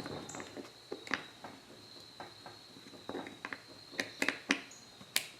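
Scattered small clicks and taps from a Kel-Tec P-15 pistol frame and a small screwdriver being handled as the safety selector is turned into a new position, with the sharpest clicks near the end. A faint steady high tone runs underneath.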